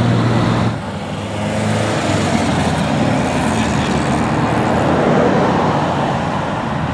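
Car engines and exhausts as cars drive off: a low, steady engine note drops away suddenly within the first second, then a broad rush of engine and exhaust noise swells and eases.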